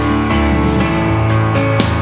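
Background music with strummed guitar and a steady beat.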